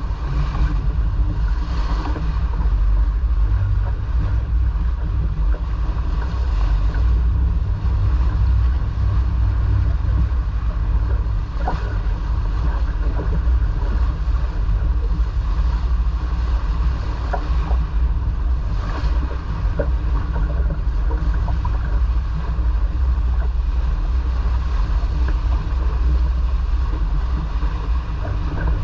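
Steady wind buffeting the microphone with water rushing past, aboard a sailboat under way.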